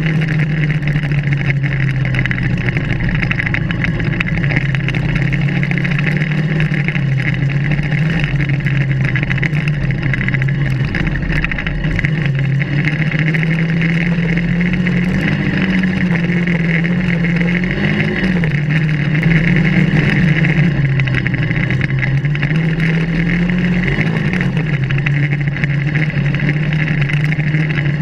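Kart cross buggy's engine running steadily under way, heard from on board the moving buggy; its pitch wavers up and down a little several times in the second half.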